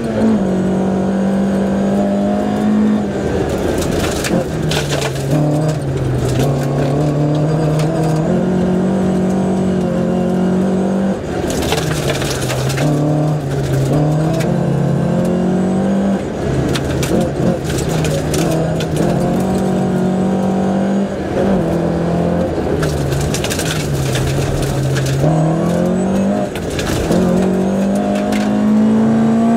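Rally car engine driven hard on a gravel stage, its pitch climbing through the gears and dropping sharply on lifts and downshifts several times. A few brief bursts of loud hiss break in over it.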